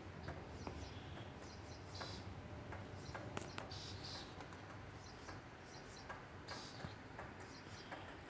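A small bird chirping in short, high calls every second or two, with a few light, sharp clicks in between.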